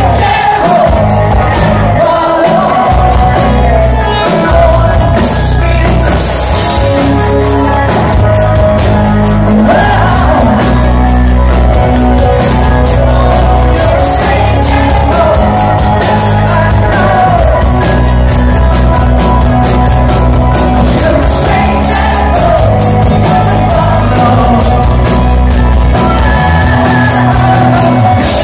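A live rock band plays loud: a male lead singer over drums, cymbals and electric guitar, heard from within the crowd.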